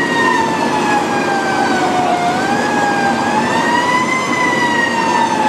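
Fire truck siren sounding a slow wail, heard from inside the cab: its pitch falls and then rises again about midway, over the steady rumble of the truck.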